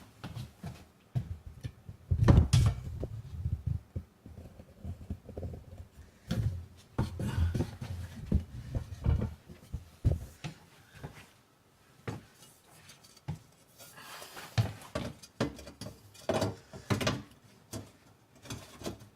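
A single pane of glass being handled and set into the opening of a wooden door to test its fit: irregular knocks, taps and scrapes of glass against the wood frame, coming and going in several clusters.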